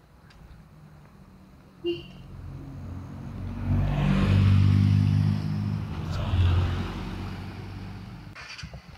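Small car driving past: its engine hum builds, is loudest about four to five seconds in, then fades as the car drives off up the road. A brief sharp sound comes about two seconds in.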